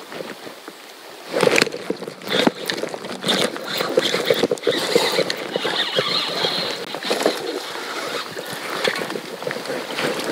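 Water splashing and sloshing around a kayak, with irregular knocks and clatter that start loud about a second in.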